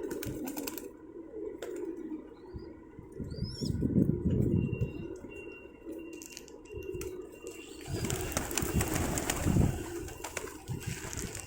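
Pigeons cooing, low repeated coos throughout, with a stretch of rustling noise about eight seconds in.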